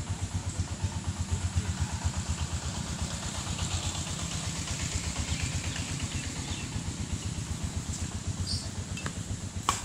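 A small engine running steadily at idle, with a low, even pulsing hum. There is a single sharp knock near the end.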